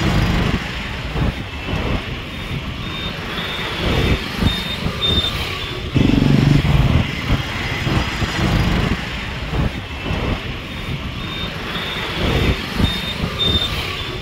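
Road traffic and vehicle engine noise heard while moving along a city road, with a heavy low rumble. Twice, a short high electronic beep repeats about three times a second for a few seconds, like a vehicle's warning beeper.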